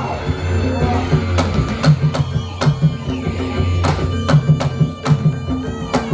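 Traditional Javanese barongan accompaniment music: a repeating drum pattern with sharp percussive strikes and held ringing tones.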